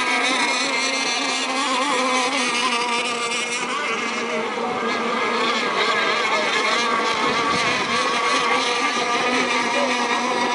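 Several radio-controlled model racing boats running at speed in a race, their high-pitched motor whines overlapping and wavering in pitch as they run the course.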